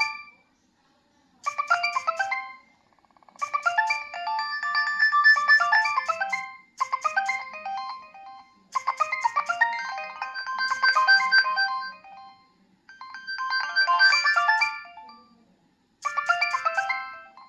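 Nokia 3120b mobile phone playing a preloaded ringtone: a melody of quick, short, high notes in about six phrases with brief pauses between them.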